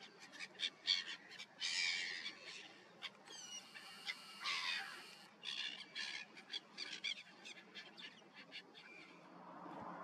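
A flock of sparrows chirping: many short, overlapping chirps with a few harsher chattering calls mixed in, thinning out near the end.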